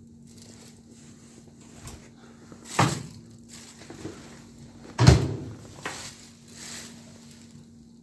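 Two loud clunks about two seconds apart, with quieter knocks and rustling between and after them, like something being handled and shut.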